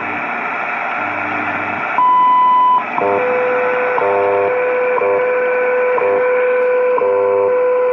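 Zenith Royal 1000 Transoceanic transistor shortwave portable playing a time-signal station through its speaker: hiss and static, then about two seconds in a long high tone lasting under a second that marks the minute, followed by a steady lower tone broken by a short tick every second.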